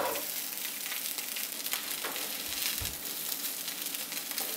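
Fried carrot cake and egg sizzling in a hot pan, with a wooden spatula scraping and turning the browned pieces. A brief dull thump near three seconds in.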